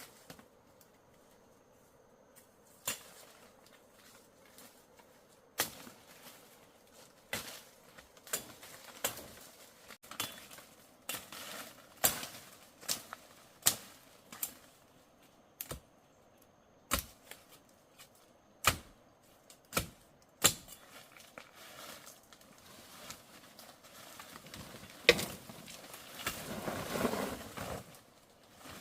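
Irregular sharp strikes of a digging tool chopping into earth, roughly one a second, with louder rustling and scraping of soil and plant matter near the end.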